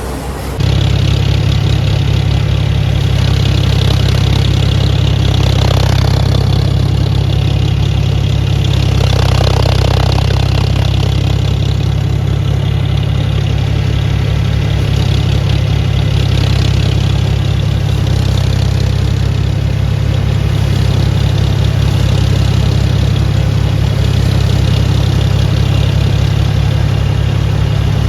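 Tractor engine running steadily at a constant speed, a loud low drone with mechanical noise above it, cutting in suddenly about half a second in.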